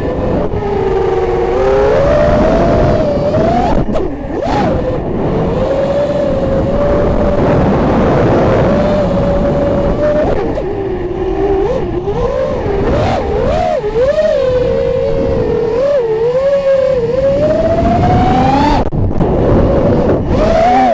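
FPV racing quadcopter's brushless motors and propellers whining, the pitch rising and falling with each throttle change, over a constant rush of wind. Near the end the whine climbs to its highest pitch, then briefly drops away.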